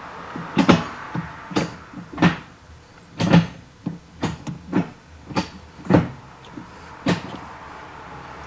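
Strikefast short shifter in a Nissan 370Z being run through the gears: a series of sharp clunks and clicks, roughly one a second, as the short lever snaps in and out of each gear gate.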